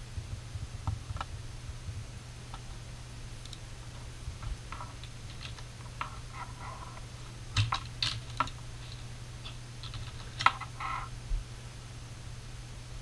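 Typing on a computer keyboard in short, irregular bursts of key clicks, with scattered single clicks between them; the loudest bursts come a little past halfway and again about three quarters of the way in.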